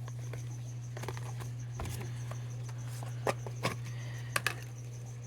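A few short clicks and light knocks from plastic deli cups being handled, over a steady low hum and a faint, high, evenly pulsing chirp.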